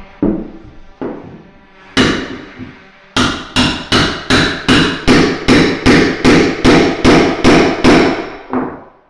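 Hammer striking a chisel driven into a chipboard floor: three separate blows, then a steady run of about fifteen blows, roughly three a second, each with a short metallic ring.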